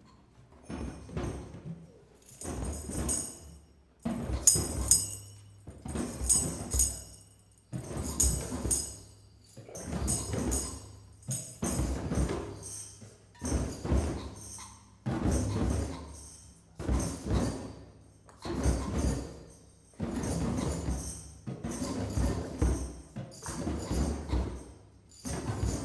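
A group of hand drums playing a heartbeat rhythm, a lub-dub double beat about every two seconds, with metallic jingles ringing on many of the beats.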